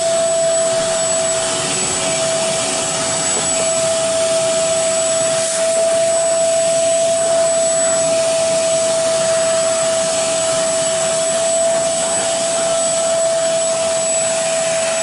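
Carpet shampooer's suction motor running steadily with a high, steady whine, its hose hand tool sucking water up from wet carpet.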